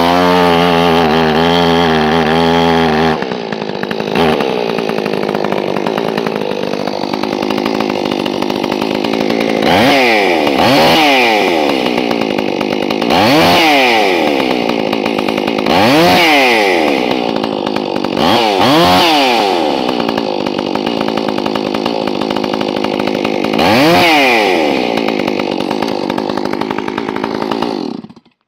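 Two-stroke gas chainsaw, freshly cleaned and reassembled, being test-run. It runs steadily at a higher speed for about three seconds, drops to idle, and is revved in about six or seven short throttle blips before shutting off near the end.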